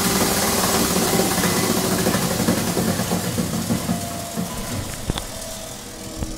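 Polymer Systems B.T.P. Silenator plastics granulator running down, its hum fading steadily over several seconds, with a faint click or two near the end. It slows quickly, a sign that it has chopped up most of the plastic that was in it.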